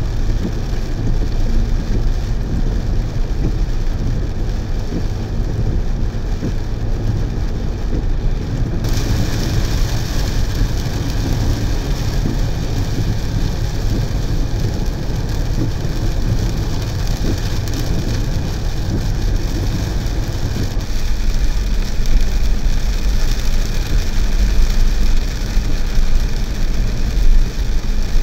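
A car driving through rain, heard from inside the cabin: a steady low road rumble with the hiss of rain and tyres on the wet road. About nine seconds in the hiss gets brighter and stays so.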